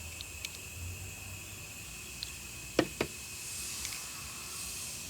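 Two sharp clicks, about a fifth of a second apart near the middle, as a special driver tool presses a new Teflon seal down onto a fuel injector. A few fainter ticks and a low steady hiss run beneath.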